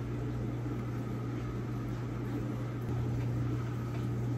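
A steady low machine hum with a faint hiss, growing slightly louder about three seconds in.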